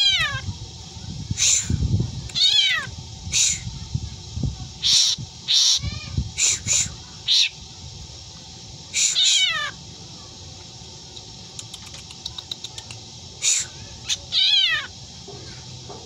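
Black drongo mimicking a cat's meow: several downward-sliding, meow-like calls mixed with short harsh screeches. The calls come in a cluster through the first half, pause for several seconds, and start again about thirteen seconds in.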